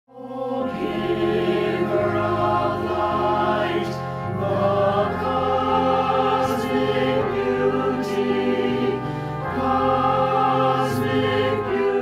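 Choral music: a choir singing slow, held chords that change every second or two.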